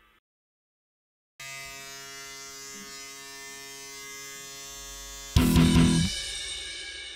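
A steady, even buzzing drone with many overtones, then a sudden loud hit that rings and fades out, like a closing sound-design sting.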